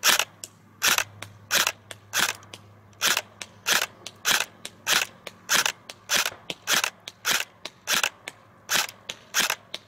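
LCT LTS-Keymod 13.5 airsoft electric gun (AEG) firing single shots on semi-auto: about fifteen sharp cracks, roughly three every two seconds, several followed by a fainter click.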